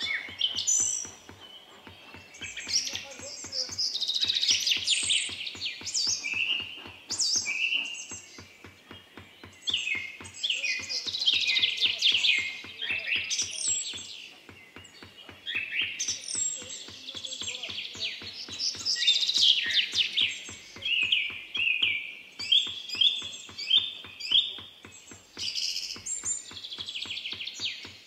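A small hammer tapping quickly and steadily, about five light taps a second, as a pierced copper tray is engraved by hand. A bird sings loud chirping, trilling phrases over the tapping and is the loudest sound.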